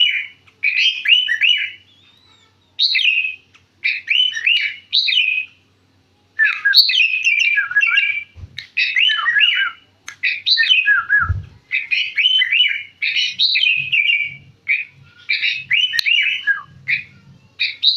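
Sooty-headed bulbul singing loudly in rapid bursts of sliding, whistled phrases, with short pauses between the bursts.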